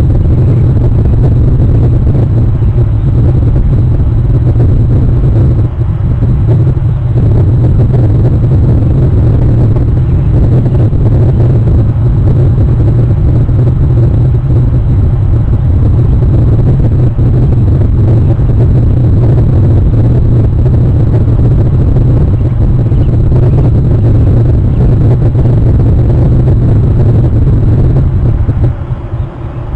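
A loud, steady low rumble with no clear pitch, easing off near the end.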